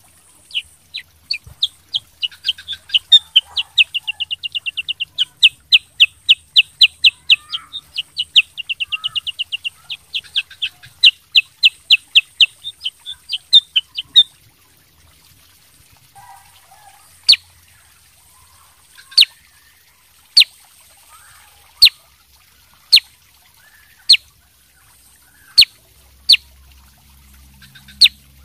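Kutilang sutra bulbul singing: a fast run of sharp, high chirps broken by two rapid trills. Then, about halfway through, the song stops and single sharp notes come about every second or so.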